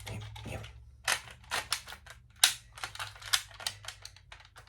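Sharp, irregular plastic clicks and clacks from handling a Kamen Rider Geats toy belt and its Monster Buckle, a rapid run of separate clicks.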